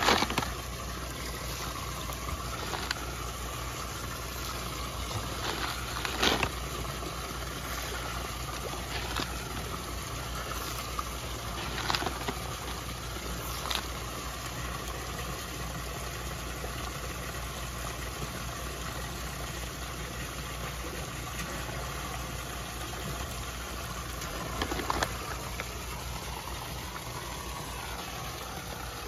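Steady mechanical hum with running water from a koi pond's pump and inflow. A few short, sharp splashes and slurps come from koi taking floating pellets at the surface.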